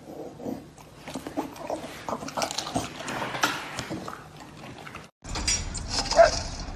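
A grey pit bull-type dog making short, irregular vocal noises mixed with clicky mouth sounds. About five seconds in, this breaks off and gives way to louder outdoor noise.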